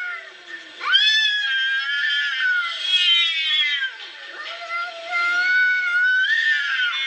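Cats yowling at each other in a stand-off: long, wavering caterwauls one after another, each starting with a quick rise in pitch. This is the threat call of cats squaring up to fight.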